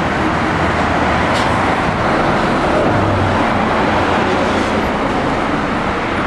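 Steady road traffic noise on a city street, with a bus driving past close by.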